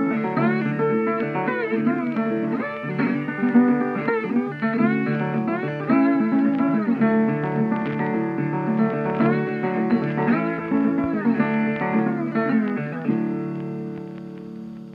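Background music: a plucked guitar tune with sliding, bending notes over chords, ending on a held chord that fades out near the end.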